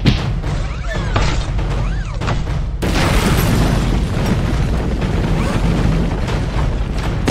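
Dramatic background music with a deep bass pulse. About three seconds in, a sudden loud boom-like rush of noise sets in and carries on: a dubbed action sound effect.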